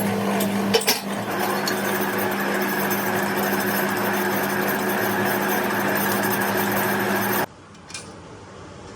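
Metal-working shop machinery or a power tool running steadily with a constant hum and scattered clicks, cutting off suddenly about seven and a half seconds in.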